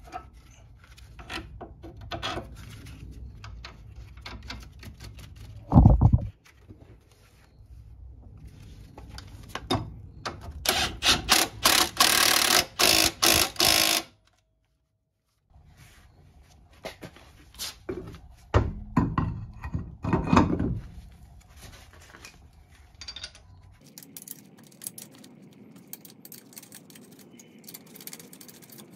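Hand-tool work on a car's front suspension: scattered metal clicks and knocks, a heavy thunk about six seconds in, and a run of rapid loud clicking like a ratchet from about ten to fourteen seconds, as the jack is let down and the sway bar end links are refitted.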